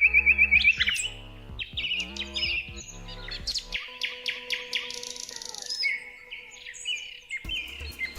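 Songbirds chirping and trilling, with several overlapping short, high calls throughout.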